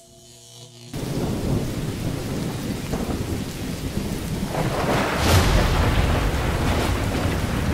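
Thunderstorm: steady heavy rain with thunder, starting abruptly about a second in and building to a loud thunderclap about five seconds in.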